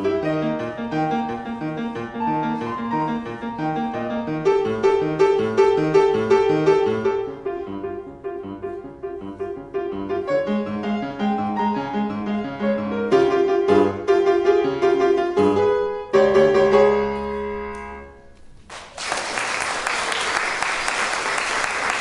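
Yamaha grand piano played solo, an up-tempo piece with a regular bass rhythm, ending on a held final chord about 16 seconds in. Applause breaks out about three seconds later and carries on steadily.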